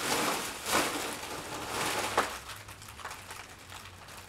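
Foil helium balloon crinkling and crackling as it is squeezed in the hands and held to the mouth to breathe in the helium. It is loudest in the first two seconds and then grows fainter.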